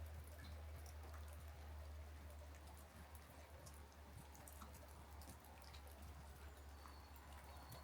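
Gentle, light rain: faint scattered raindrops ticking and pattering over a soft hiss, with a steady low hum underneath.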